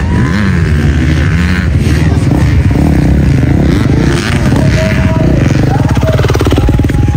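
Motocross dirt bike engines revving, rising and falling in pitch, with one bike running close by near the end.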